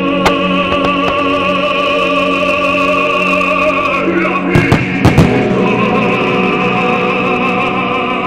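Opera music with a singer holding long vibrato notes over an orchestra. Several sharp firework bangs come about four and a half to five seconds in and are the loudest moment, with a single crack near the start.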